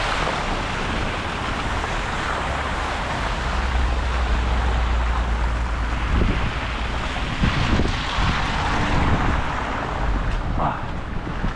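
Wind buffeting the microphone with a gusty low rumble, heaviest a few seconds in, over a steady outdoor hiss of street noise.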